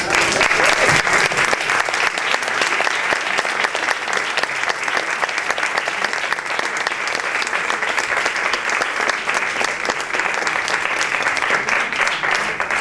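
Audience and panel applauding: a steady round of hand clapping that tapers off near the end.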